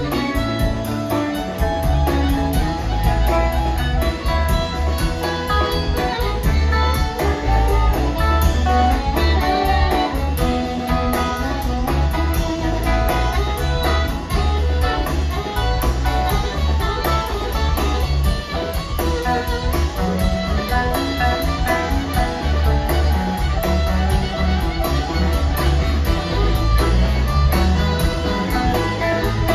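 Live blues-rock band playing an instrumental passage: a harmonica lead over electric bass, drums, guitar and keyboards, with no singing.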